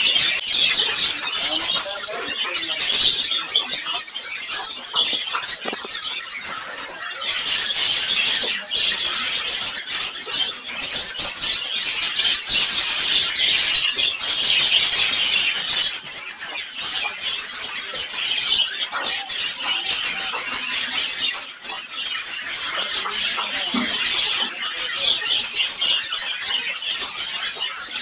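Dense, continuous high-pitched chattering and chirping of many small caged birds together, swelling and easing every few seconds.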